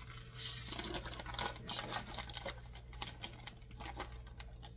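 Plastic bag of shredded cheese being handled and opened: crinkling with many scattered small clicks.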